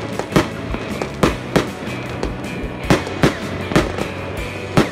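Fireworks going off in rapid irregular succession, about ten sharp bangs, roughly two a second.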